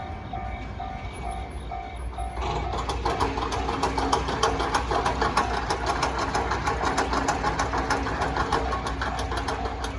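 Japanese level-crossing warning bell ringing in an even pulse, about two strikes a second. About two and a half seconds in, a train passes close by, its wheels clattering fast and evenly over the rails and mostly covering the bell.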